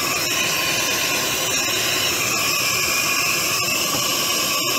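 Compressed air hissing steadily, with a wavering whistle in it, as a leak-down tester pressurises a cylinder of a Generac standby generator engine. The cylinder is leaking badly, which is taken for a worn set of piston rings or leaking valves.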